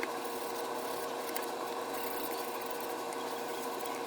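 A small motor running steadily: an even hiss with a constant mid-pitched hum.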